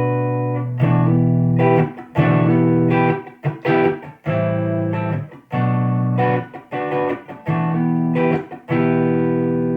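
Electric guitar, a 1954 Gibson Les Paul, played clean through a Bludotone Mini 80's Classic amp (tube preamp, Class-D power amp) into an Electro-Voice 12S 2x12 speaker cabinet. Chords are struck in short phrases with brief gaps, and the last chord is left ringing near the end.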